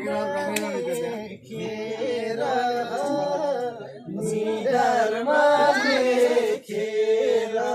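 Men singing a Nepali song in long, held melodic lines, with a few faint taps.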